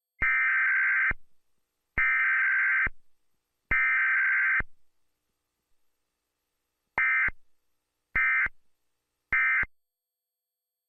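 Emergency Alert System SAME data bursts. The digital header is sent three times as one-second bursts of buzzy two-pitch data tone, then the end-of-message code is sent three times as short bursts, which closes the weekly test alert.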